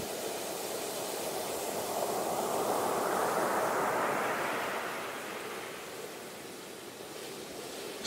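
Ocean surf: a steady rush of breaking waves that swells a couple of seconds in and eases off toward the end.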